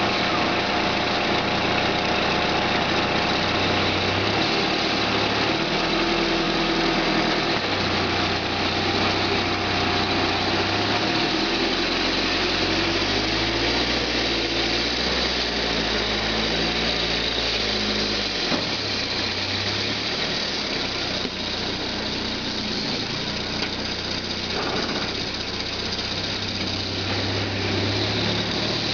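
Engine of a homemade forestry forwarder running under load as it drives and manoeuvres, its speed stepping up and down several times. A steady high whine runs over it.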